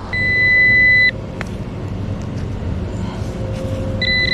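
Metal detector target tones: a steady high tone lasting about a second at the start, with a lower tone under it, then a lower tone from about three seconds in and a short high beep near the end. They signal that the high-conductive target is still in the hole.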